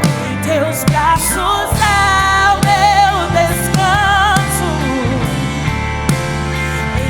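Live worship band music with a sung melody carried over it, the held notes wavering with vibrato.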